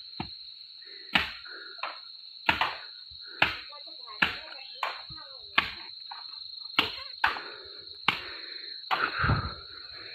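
Hollow bamboo stalks knocking together as they are handled, a sharp knock about every half second to second, with a heavier thump near the end. A steady high-pitched insect drone runs underneath.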